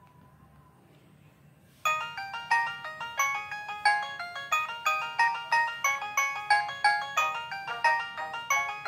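Samsung ringtone played on a ZTE Z222 mobile phone. After about two seconds of near quiet, a bright synthesized polyphonic melody starts abruptly and runs on in a quick, steady rhythm of short, quickly fading notes.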